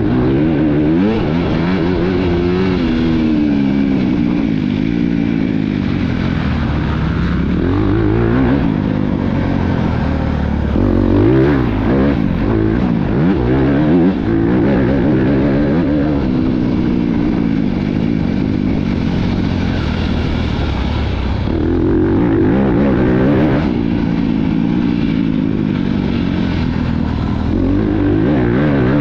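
Motocross bike engine heard close up from on board, its pitch climbing and dropping over and over as the throttle is opened and closed through the gears.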